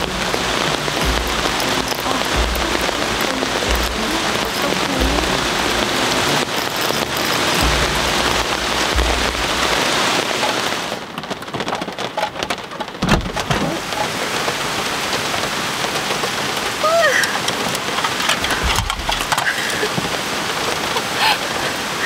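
Heavy rain pouring down in a loud, steady hiss, with low thuds through the first half. About halfway through the sound changes abruptly, the hiss thinning, and a few short pitched sounds come in near the end.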